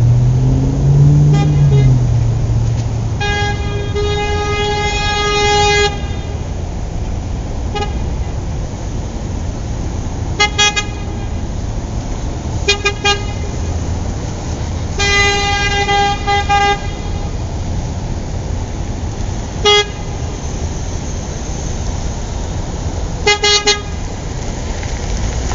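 Car horn honking over a steady hiss of traffic: short toots and quick double toots alternating with two long blasts of a couple of seconds each, all at one pitch.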